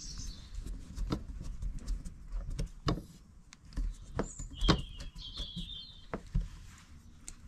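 Scattered small clicks and knocks of a hand screwdriver driving a screw into the aluminium end fitting of a Thule Elite G2 bike rack. The loudest knock comes a little past halfway, followed by a short high chirp.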